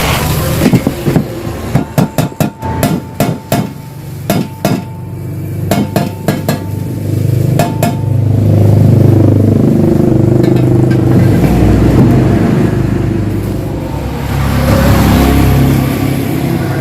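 Hammer blows on metal, about a dozen sharp strikes in quick runs, each ringing briefly. About halfway through, the hammering gives way to a steady, low-pitched machine running loudly.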